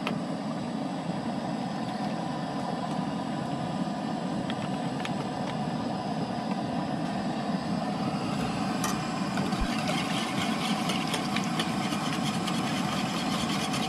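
Coleman propane camp stove burner running with a steady rushing hiss while it preheats the camp oven. In the second half a wire whisk taps and scrapes in a stainless steel bowl as milk is whisked into eggs.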